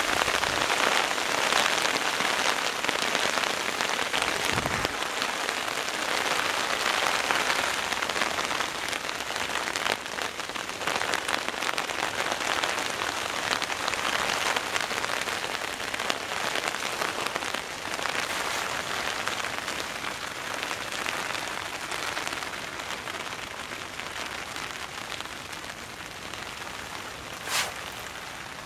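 Heavy rain falling on a tarp overhead, a dense steady patter that eases off gradually as the downpour lightens. A single sharp click sounds near the end.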